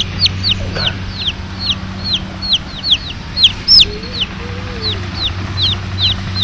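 Baby chicks peeping over and over: short, high, falling peeps, about three or four a second, over a steady low hum.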